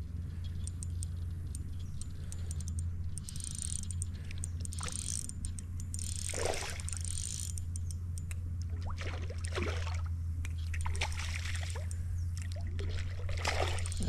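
Creek water splashing and trickling as a hooked smallmouth bass thrashes on the line, with irregular light clicking from the fishing reel. The louder splashes come about six seconds in, again around nine to ten seconds, and near the end.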